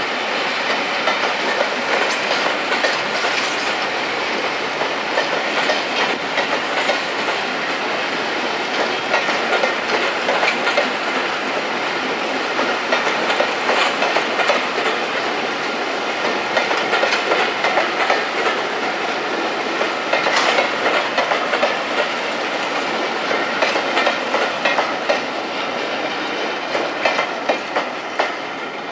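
Train of passenger coaches rolling past, wheels clacking steadily over the rail joints, fading as the train clears near the end.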